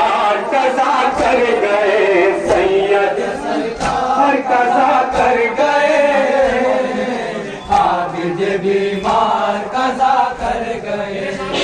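A group of men chanting a nauha, a Shia Muharram mourning lament, in unison. Regular sharp slaps of chest-beating (matam) keep time under the voices.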